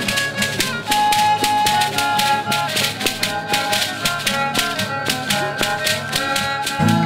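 Rarámuri dance music: an acoustic guitar playing while the dancer's ankle rattles, strings of dried moth cocoons, shake on each step in a quick, steady beat. A louder guitar strum comes in at the very end.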